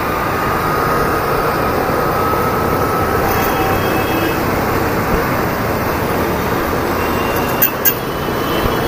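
Hero Destini 125 scooter's single-cylinder engine running steadily under way, mixed with the rumble of road traffic. Two short sharp clicks sound near the end.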